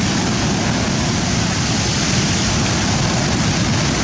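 Rough sea surf with wind: a loud, steady rush of noise with no distinct breaks or impacts.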